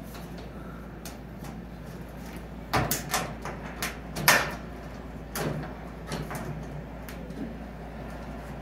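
Scattered clicks and knocks of a small screw and the auto opener's metal bracket being handled against the cold frame lid's aluminium frame while the screw is threaded in by hand. The loudest knocks fall a few seconds in.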